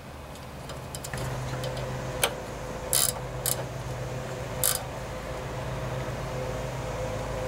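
A steel wrench clicking against the carburetor's fittings as a plug is tightened: four sharp metallic clicks between about two and five seconds in. A steady low hum runs in the background, getting louder about a second in.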